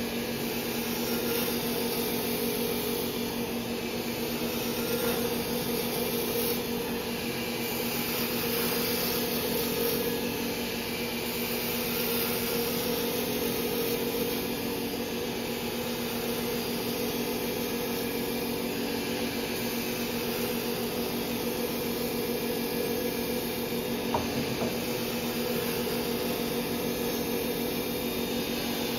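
Wood lathe running with a steady motor hum while a turning tool cuts a taper into a spinning wooden mallet handle, a continuous rushing cut over the hum.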